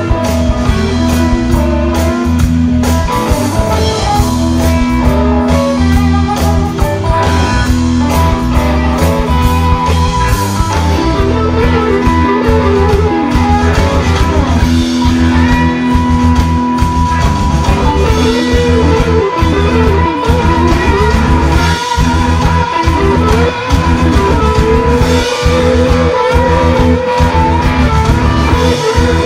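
Live electric blues-rock band playing an instrumental passage: electric guitars over a steady drum-kit beat, with long held notes that waver in pitch in the second half.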